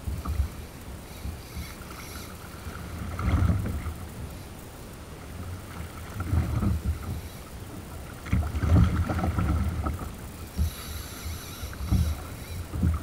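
Sea water slapping and sloshing against a plastic kayak hull in a rough offshore swell, with wind buffeting the microphone. The sound comes in irregular surges every two or three seconds.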